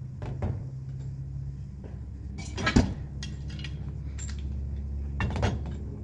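Steel exhaust mounting brackets clinking and clanking against the motorcycle slip-on mufflers as they are stacked on a scale, in scattered knocks with the loudest just before the middle and a cluster near the end. A steady low hum runs underneath.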